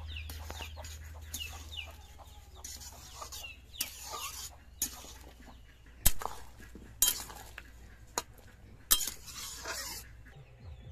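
Metal spatula scraping and knocking against a metal wok as a thick curry is stirred, with several sharp clanks in the second half. Chickens cluck in the background.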